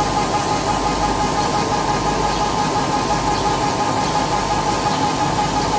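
Bodor 1309XU 150 W CO2 laser engraving machine running as it engraves glass on its rotary attachment: a steady mechanical hum with a fast-wavering whine over a hiss.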